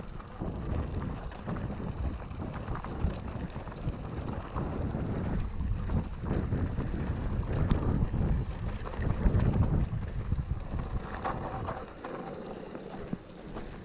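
Wind buffeting an action camera's microphone while a mountain bike rides over a dirt trail, a steady low rumble broken by small clicks and rattles.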